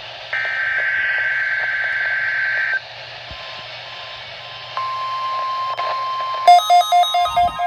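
NOAA Weather Radio test alert through a weather radio receiver: a buzzing two-tone SAME header data burst ends about three seconds in. About two seconds of radio hiss follow, then the steady 1050 Hz warning alarm tone starts. Plucked-string music comes in over the tone near the end.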